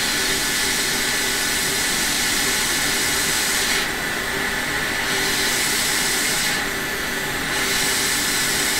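Hot air rework station blowing a steady hiss of hot air onto the board to reflow the solder under a small surface-mount temperature sensor. The hiss dips twice, for about a second each time.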